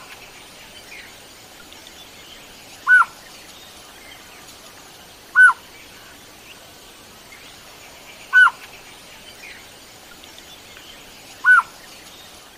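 A bird repeating a single short call, one note that rises and falls, about every three seconds, over a faint steady background hiss.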